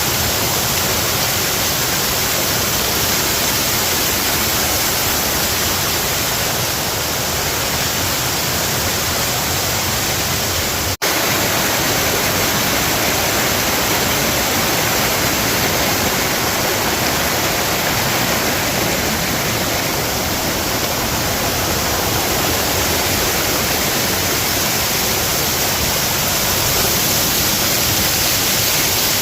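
Waterfall rushing: a steady, loud wash of falling water, broken by a momentary dropout about eleven seconds in.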